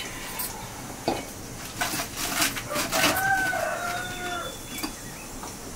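A rooster crows once, a single long call of about a second and a half starting about three seconds in. Just before it come several sharp knocks.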